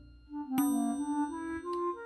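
Background music: after a brief pause, a short melody of held notes that step from one pitch to the next, ending on a longer sustained note.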